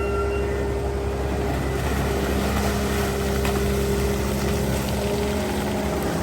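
Diesel engine of a long-reach excavator running steadily under load, with a strong low hum and a slight shift in engine pitch about two seconds in.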